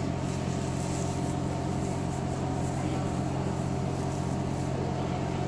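A steady low mechanical hum that does not change.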